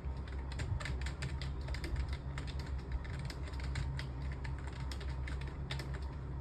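Fast typing on a computer keyboard: a rapid, irregular run of key clicks. A steady low hum lies underneath.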